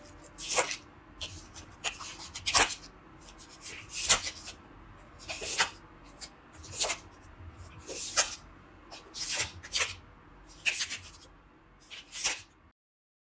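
A series of short, scratchy rubbing sounds, about one every second and a half, cutting off abruptly to silence near the end.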